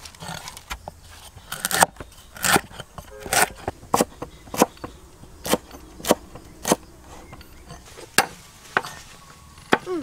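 Cleaver chopping lemongrass stalks on a wooden cutting board: a string of sharp chops, a little more than one a second.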